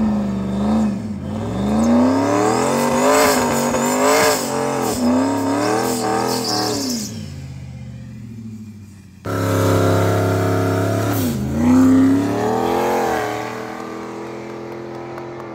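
Ford Mustang engine revved hard during a burnout, its pitch climbing and dropping about once a second. After a sudden cut, another rev rises and falls, then settles into a steadier, lower drone.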